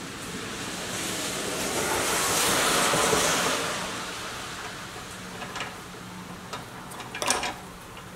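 Gloved hands prying the hubcap off the wheel of a 1960s Tonka pressed-steel toy pickup: a scraping rustle that swells and fades over a couple of seconds, then a few small clicks as the rusted metal centre and white ring are handled, the loudest near the end.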